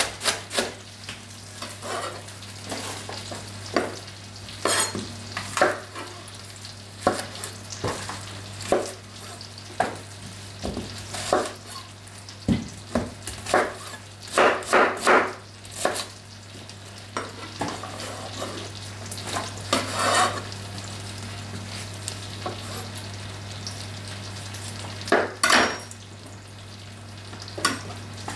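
Chef's knife cutting through an apple, onion and plums on a wooden board: irregular knocks of the blade striking the board, in quick clusters, over a steady low hum.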